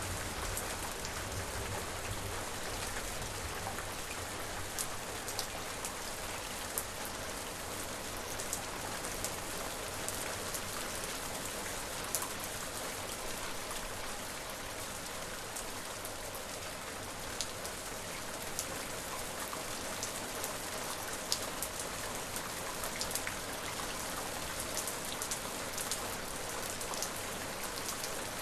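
Steady rain falling, with a dense even hiss and scattered sharper drop ticks from drops striking a surface.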